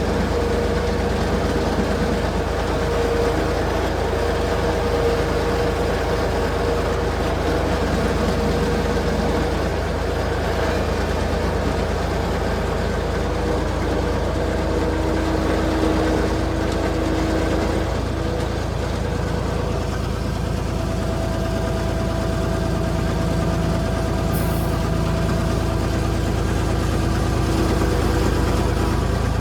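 A vehicle engine running steadily under a constant low rumble, with faint steady tones that shift in pitch a few times.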